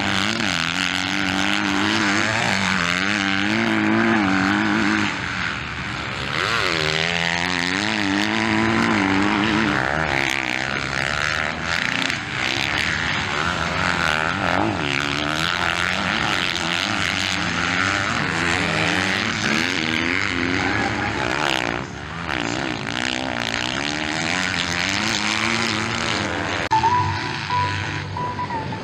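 Dirt bike engines racing on a motocross track, revving up and dropping back again and again as riders accelerate out of turns and shift. A short steady tone joins near the end.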